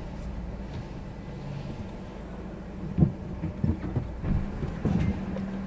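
Car running at crawling speed, heard from inside the cabin as a steady low hum, with a few dull thumps from about three seconds in.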